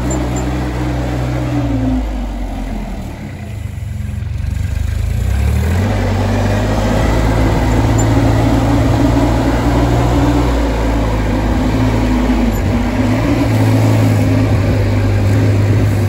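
An engine running steadily, its note dropping and quietening about two seconds in and picking up again a few seconds later.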